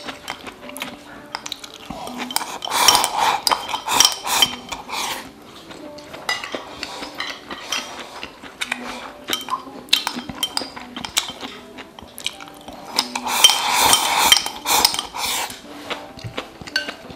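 Chopsticks clicking and scraping against a ceramic rice bowl as food is shovelled into the mouth, in two busy spells about two seconds and thirteen seconds in, with scattered single clicks between.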